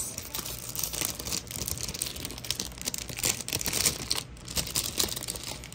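Clear plastic packaging sleeve crinkling and crackling as the postcards inside it are handled, a dense run of irregular crackles.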